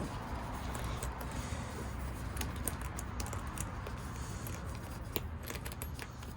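Light clicks and scrapes of drone packaging being handled, over a steady low rumble of wind and distant traffic.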